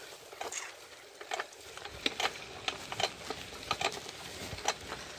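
A very old child's bicycle rolling down a concrete road, rattling with irregular sharp clicks, about two or three a second, over a faint steady rush.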